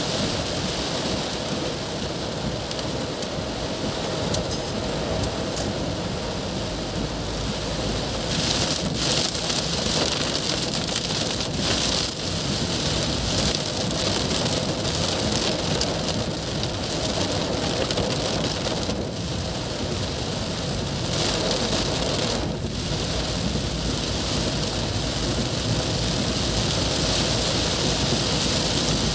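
Heavy rain falling on a car's roof and windscreen, heard from inside the moving car: a steady, even hiss.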